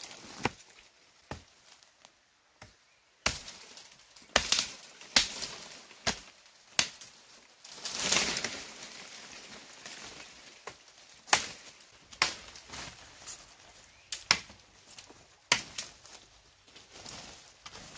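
Chopping: a series of sharp strikes at uneven intervals, with a longer swishing noise about eight seconds in.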